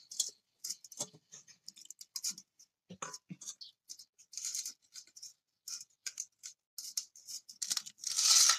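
Fingers mixing rice and dal on a stainless steel plate: irregular little scrapes and clicks of the fingertips against the steel, with a longer, louder scrape near the end.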